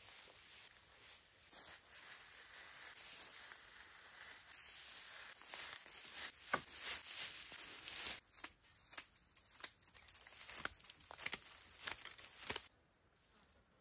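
Dry rustling and crinkling that builds over several seconds, then a run of sharp crackles and snaps that stops abruptly near the end, as of dry vegetation being handled.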